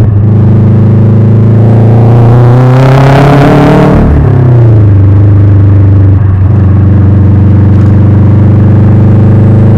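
Subaru Impreza GB270's flat-four engine idling loudly through a custom 3-inch exhaust, revved once about two seconds in and dropping back to a steady idle.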